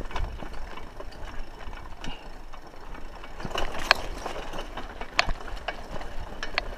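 Raleigh Ascent mountain bike rattling over a rough dirt trail: a low rumble with irregular clicks and knocks from the bike, a sharper knock about four seconds in and another about five seconds in.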